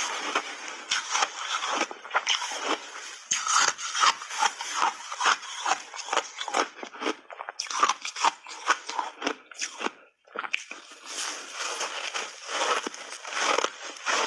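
Big bites of refrozen block ice being crunched and chewed, a fast, irregular run of sharp crunches. They pause briefly about ten seconds in, then start again.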